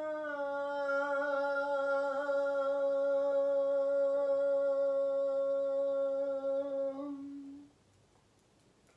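A woman humming one long, steady voice-toning note, its pitch dipping slightly near the start and then held level. The note fades out about seven and a half seconds in, leaving near silence with a few faint clicks.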